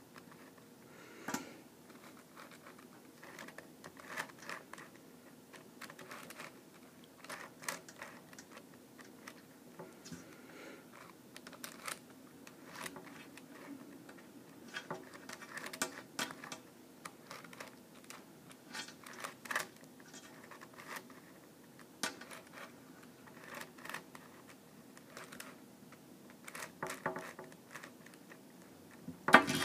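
Pocket Geranium twisty puzzle being turned by hand: its circular faces rotate with a long, irregular series of light plastic clicks and scrapes as the pieces move.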